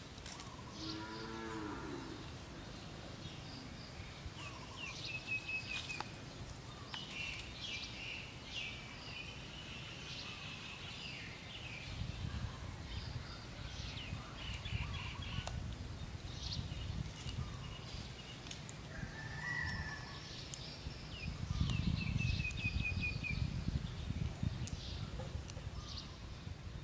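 Outdoor ambience: birds chirping and trilling in quick repeated notes, with one brief pitched animal call about a second in. A low rumble swells in the second half and is loudest a little past the 20-second mark.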